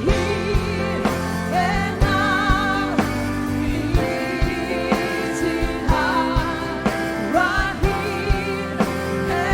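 Live Christian worship song with a band: a vocalist sings with vibrato over sustained keyboard chords, backed by a drum kit keeping a steady beat.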